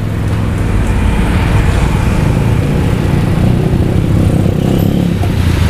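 Road traffic passing close by, mostly motorcycles and cars, their engines making a steady low hum with no break.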